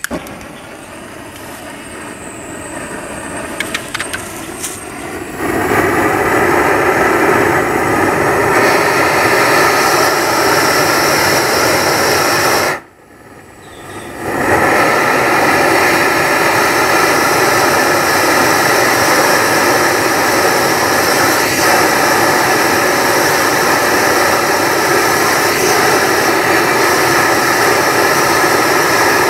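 Blowtorch flame running with a loud, steady rushing noise, starting about five seconds in after a few sharp clicks. It cuts out for about a second and a half near the middle, then comes back and runs steadily.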